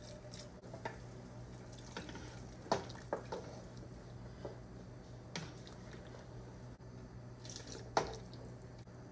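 Thin rice-flour slurry poured from a glass measuring jug into a steel stockpot of soup while it is stirred, with a few light knocks and clinks of utensils against the jug and pot, the sharpest about three and eight seconds in. A steady low hum runs underneath.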